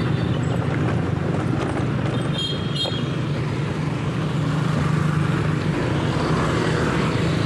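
Motorcycle engine running steadily while riding along a road, with wind rushing over the microphone. Two brief high chirps sound about two and a half seconds in.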